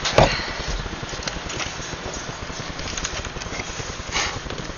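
Rustling and scraping handling noise with scattered light clicks, as sawdust-strewn material is moved about; no chainsaw running.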